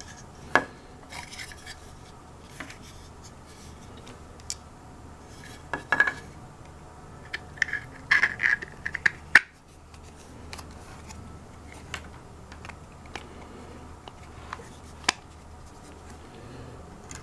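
Clicks, taps and short scrapes of 3D-printed plastic gearbox parts being handled and fitted together onto a small DC motor. Sharp knocks come about half a second in and around six seconds, a quick cluster follows around eight to nine seconds, and one more comes near the end.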